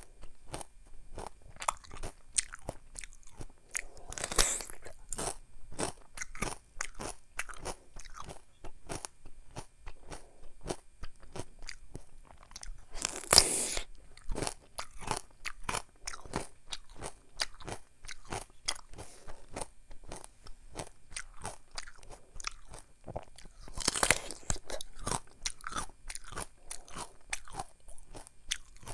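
Crunchy bites into a mini Korean melon (chamoe), rind and all, followed by steady wet crunching chews. Three louder bites come about 4, 13 and 24 seconds in.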